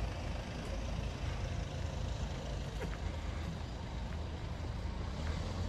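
City street ambience: a steady low hum of traffic on a wide multi-lane road.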